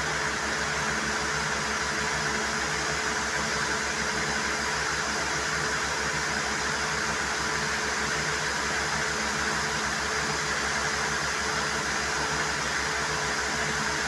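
Borewell air-compressor engine running steadily with an even low throb, over a steady rushing hiss of compressed air flushing the borewell.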